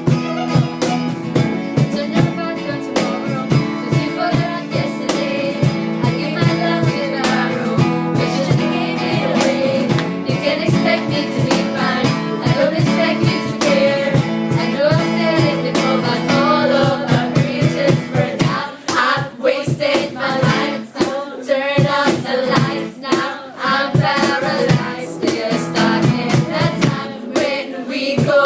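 Singing with acoustic guitar strumming; about two-thirds of the way through, the low guitar chords thin out and the voice comes forward.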